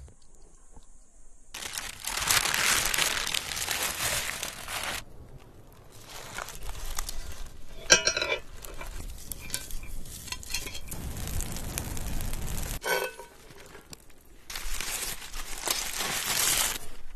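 Parchment paper and foil crinkling in two long spells. About eight seconds in a cast-iron pot gives a sharp ringing clink, with a second, shorter clink near thirteen seconds.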